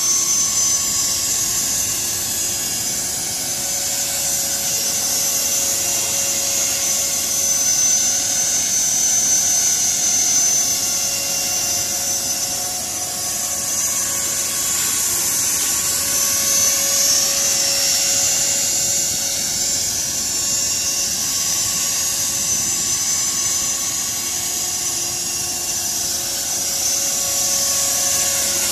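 Electric 450-size RC helicopter (CopterX 450 Black Angel) in flight: the steady high-pitched whine of its motor and gear drive over the hum of the spinning rotors, the tones wavering a little in pitch as it holds and shifts position.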